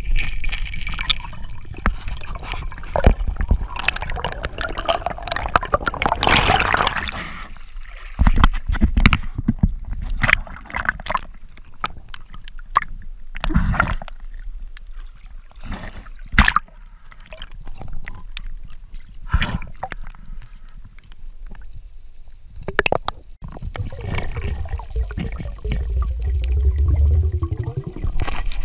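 Water sloshing and gurgling around an underwater camera, broken by irregular sharp clicks and knocks.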